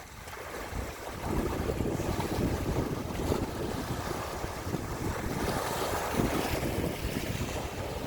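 Sea waves washing and wind blowing, with wind buffeting the microphone as a low rumble; the surf swells louder about a second in.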